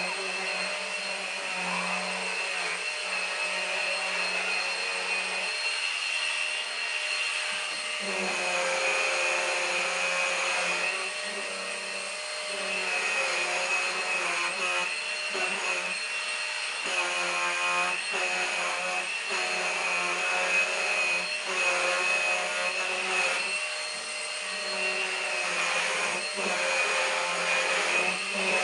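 Numatic Henry Quick cordless stick vacuum running on a sofa, a steady high motor whine throughout. Beneath it the lower sound keeps shifting and dropping in and out every second or two as the turbine brush head is worked over the upholstery.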